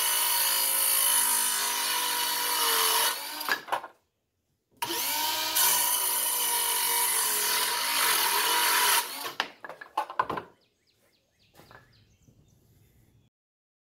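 Bauer 20-volt cordless circular saw with a 24-tooth framing blade cutting wood in two passes of a few seconds each. Each pass is a steady loud whine whose motor pitch wavers under load, then winds down, with a few knocks after the second cut.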